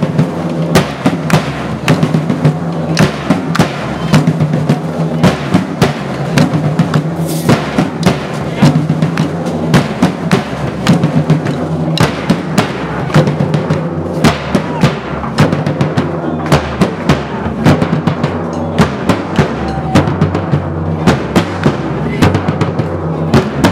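Loud music led by drums: rapid, irregular drum beats over sustained low tones.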